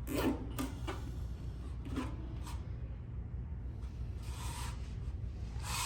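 Nylon zip tie being pulled tight through its ratchet around fan wiring: a few short zips, then two longer ones near the end, over a steady low hum.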